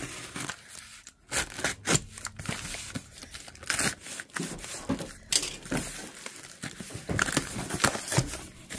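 Utility knife slicing through packing tape on a cardboard box, with tape tearing and cardboard crinkling as the flaps are pulled open.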